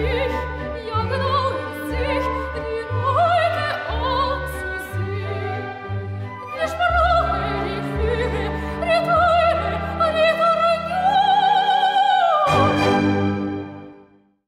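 Opera music: a singer with wide vibrato over orchestral accompaniment with low bass notes, ending on a long held note that fades out near the end.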